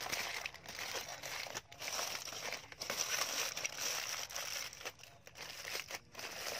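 Aluminium foil crinkling as hands fold and crumple it into a sealed parcel, with a few brief pauses.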